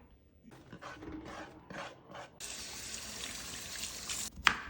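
Kitchen tap running into the sink for about two seconds, after a stretch of small knocks and rustles, with one sharp knock just before the end.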